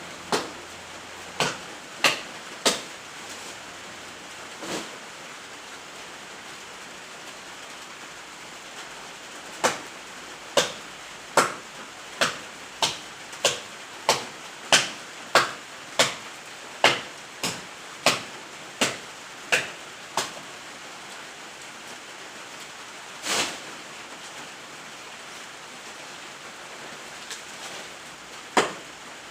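Chopping through the wood of a fallen breadfruit tree: sharp single blows, a few at first, then a steady run of about one blow every two-thirds of a second, a pause, and two more. A steady hiss lies underneath.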